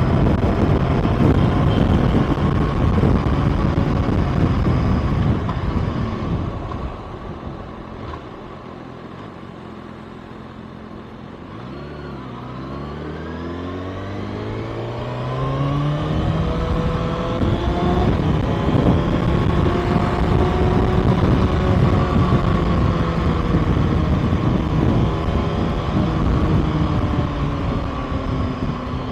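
Kawasaki ZX-6R's inline-four engine on the move with wind rush. It eases off to a quieter low note for a few seconds, then its pitch rises as it picks up speed again.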